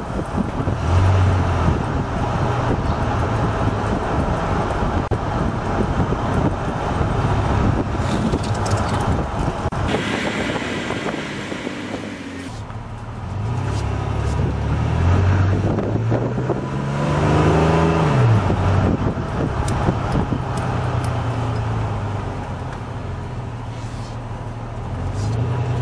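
1999 GMC Sierra's 4.3L Vortec V6 running through a Gibson cat-back exhaust, heard from inside the cab during slow neighborhood driving, with road and wind noise. The engine note climbs as the truck accelerates a little past the middle, then drops sharply, and it rises briefly again near the start and the end.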